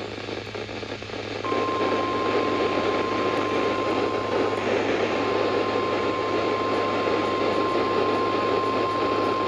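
NOAA Weather Radio / EAS single-tone attention signal (1050 Hz) starting about a second and a half in and holding steady, over constant radio hiss with a low hum. This is the alarm tone that comes before a warning message.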